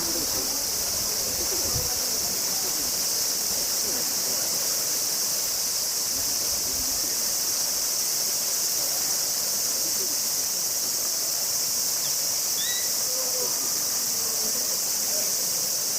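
Steady, high-pitched insect chorus, unbroken throughout, with faint distant voices underneath.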